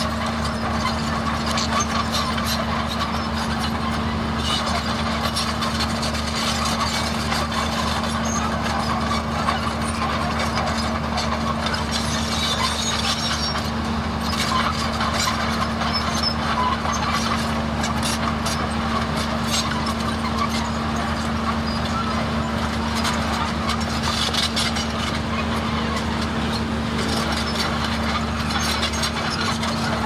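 Heavy diesel earthmoving machine engine running steadily, with frequent short clanks and rattles over it.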